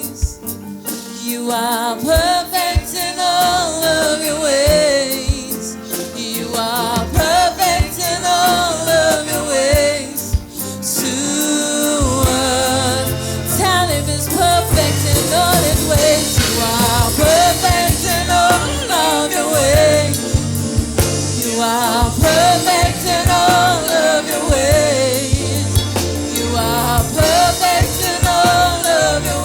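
Gospel worship song with a lead singing voice over instruments; a bass line comes in and fills out the sound about twelve seconds in.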